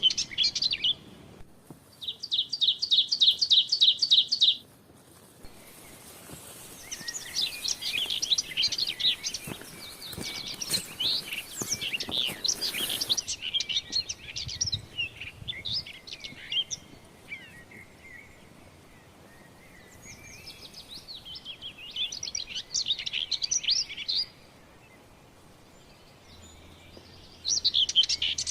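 Forest birds singing and calling: a fast, even trill about two seconds in, then several birds chattering over one another, with quieter gaps between bouts.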